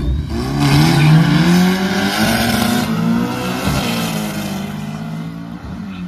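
Two drag-racing cars launching off the start line and accelerating hard away side by side. The engine note climbs, drops back at each gear change and climbs again. It is loudest about a second in, then fades steadily as the cars run down the strip.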